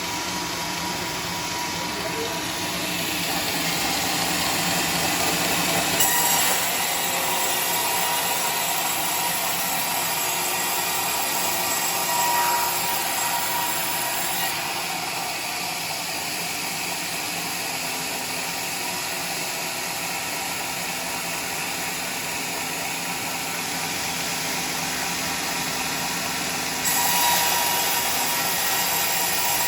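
Home-made sawmill's saw running and cutting teak timber: a loud, steady mechanical din with a thin whine, its tone shifting a few times as the cut goes on.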